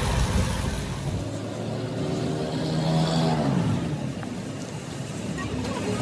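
A road vehicle's engine running, its pitch rising and then falling about halfway through.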